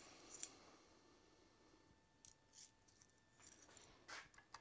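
Faint metallic clicks and taps from steel brake line being handled and set into a vise-mounted tube bender. There is one sharper click about half a second in and a scatter of lighter taps later on.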